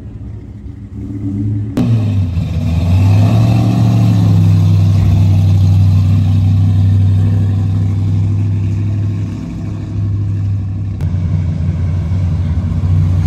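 Cars' engines as they cruise slowly past. A pickup's engine runs up briefly, then holds a deep, steady exhaust note as it passes. Near the end a different car's engine takes over.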